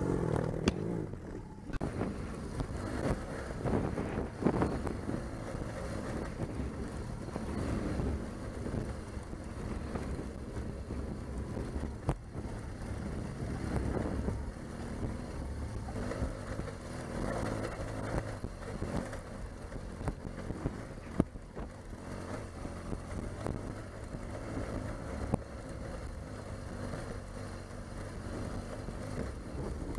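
Adventure motorcycle engine running at low speed off-road, its note rising and falling with the throttle over rough grassy ground, with a few sharp knocks from the bike jolting over bumps and some wind on the microphone.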